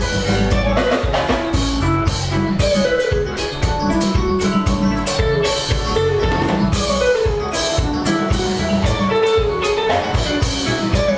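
Background music with a steady drum beat and a melody over it, running without a break.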